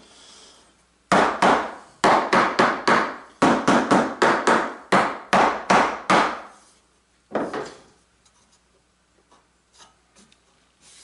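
Mallet tapping a glued, clamped plywood panel: about twenty quick wooden knocks over five seconds, three to four a second, then one more knock a second later. The taps seat the glued edges down flat.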